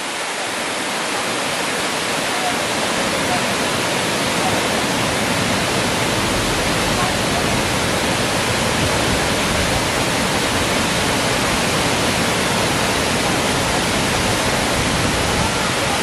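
Waterfall pouring down a rock face: a steady, loud rush of falling water.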